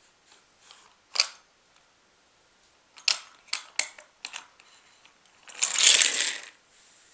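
Plastic clicks and snaps from a Take N Play Sodor Steamworks repair shed toy being worked by hand: one sharp snap, then a run of about five clicks as the lift platform is pushed up. Near the end a die-cast toy engine rolls along the plastic track for about a second.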